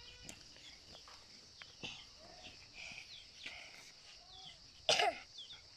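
A person coughing once, short and sharp, near the end, over faint chirping of birds.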